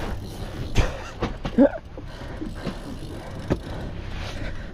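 Steady background noise on an open fishing boat, broken by a few sharp knocks, the loudest about a second in, and a short strained vocal sound about a second and a half in.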